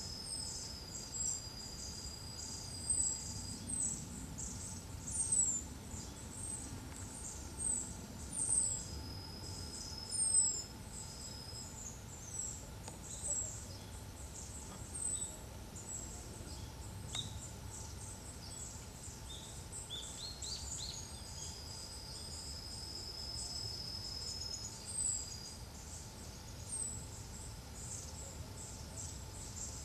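Thin, very high bird calls in the forest: short falling notes, about one a second, over a steady background. At times a steady high insect trill joins in, each one lasting a few seconds.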